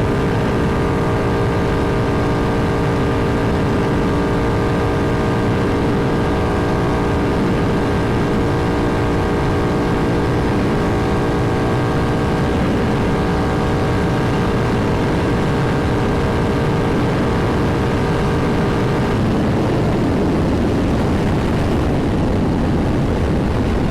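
Triumph Thruxton R's parallel-twin engine through Meerkat racing mufflers, held at a steady high engine speed under load. About nineteen seconds in, the steady engine note drops away, leaving a rough rushing noise.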